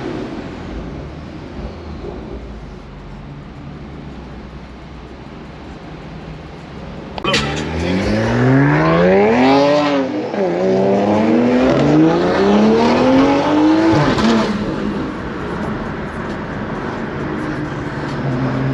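Car engine and exhaust droning steadily, then accelerating hard from about seven seconds in: the pitch climbs for a couple of seconds, drops briefly at a gear change, and climbs again before settling back to a steady drone.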